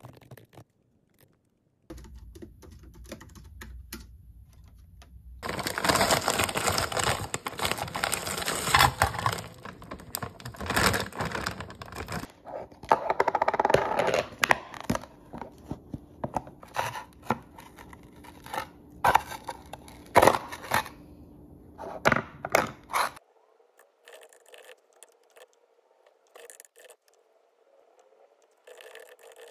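Soft typing on a computer keyboard, then a long loud stretch of kitchen handling: plastic food containers and packaging rustling, clicking and clattering. From about 23 seconds in, it gives way to a faint steady hum with a few soft keyboard clicks.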